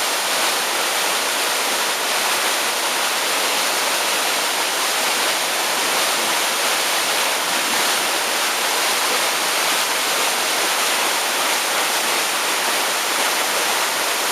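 Fast-running floodwater after a typhoon, a loud steady rush that stays the same throughout.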